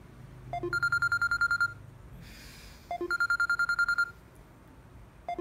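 Smartphone ringtone on an incoming call: a short rising lead-in, then a quick trill of about a dozen even electronic beeps lasting about a second, repeating twice, with a third ring starting at the end.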